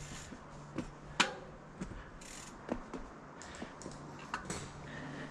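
Scattered sharp clicks and light knocks, the loudest about a second in, over a faint steady low hum.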